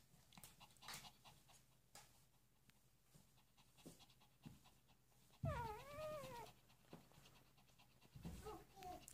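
Newborn shih tzu puppies nursing: faint soft clicks throughout, then about five and a half seconds in a puppy gives one wavering whine, rising and falling for about a second, with a fainter squeak near the end.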